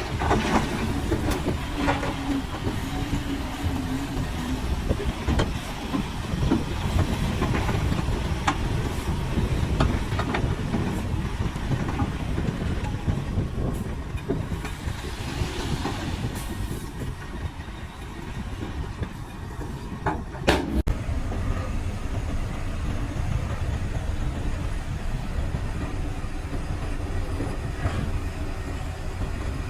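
Komatsu crawler bulldozer working: its diesel engine runs steadily, with irregular metallic clanks from the steel tracks and blade. There is a sharper clank about twenty seconds in.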